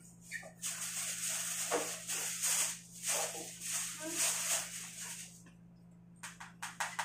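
Plastic bags and plastic food-handling gloves crinkling as food is handled and served, with a quick run of sharp clicks near the end, over a steady low hum.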